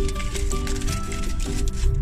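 Background music: held melody notes that change in steps over a heavy bass line.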